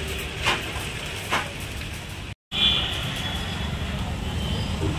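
Busy street noise: a steady traffic rumble with voices in the background. Two short knocks come in the first second and a half, and the sound drops out briefly a little under halfway through.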